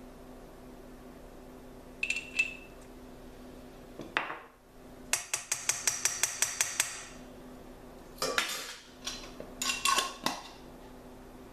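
Metal measuring spoons clinking against a stainless steel mixing bowl, with a quick run of about a dozen light taps about five seconds in, like a spoon being knocked on the bowl to empty it, and a few more clinks near the end.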